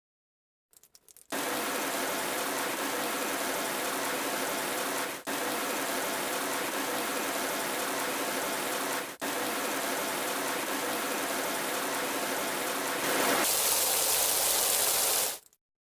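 Heavy rain falling in a steady, dense hiss. It starts about a second in, drops out briefly twice, gets louder and brighter near the end, then stops suddenly.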